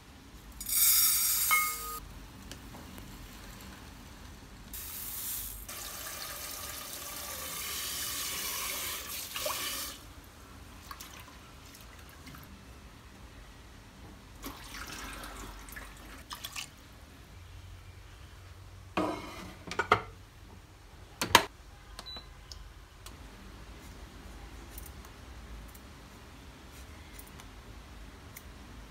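Rice poured from a cup into a rice cooker's inner pot, then tap water running into the pot at a stainless-steel sink for about five seconds while the rice is rinsed and the water drained off. A few sharp knocks of the pot and utensils are the loudest sounds.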